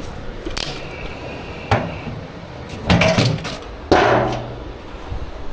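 A few sharp knocks and a clatter, with one heavy bang about four seconds in that is the loudest, like something being shut or set down hard.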